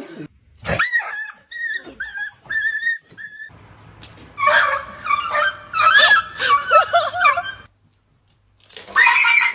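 Dog whining: a run of about five short, high whimpers, then longer wavering whines, a pause, and more whines near the end.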